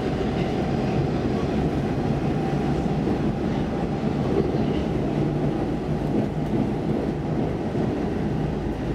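Stockholm Metro C14 subway car running at speed through a tunnel, heard from inside the car: a steady, even rumble of wheels on rails with a low drone.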